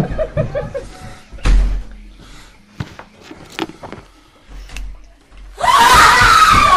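Laughing, with a few sharp knocks in between, then a sudden loud, dense burst of noise about five and a half seconds in.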